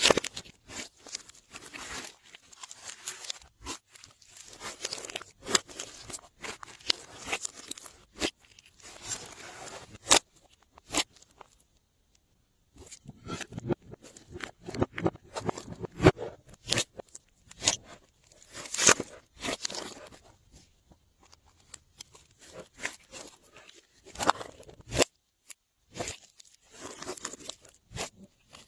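Glossy slime being kneaded and stretched by hand, giving off irregular sticky clicks, crackles and pops, with a brief pause about halfway through.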